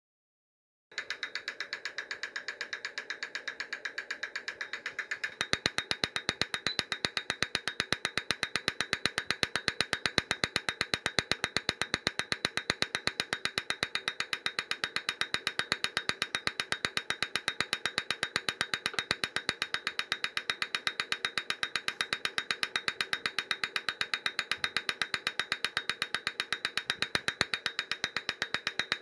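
Direct-injection fuel injector being fired over and over by a peak-and-hold driver: rapid, even clicking that starts about a second in and gets louder about five seconds in, with a thin steady high tone underneath.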